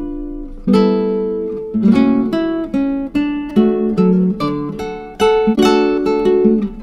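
Background music: acoustic guitar picking chords and single notes, each one struck and left to ring out.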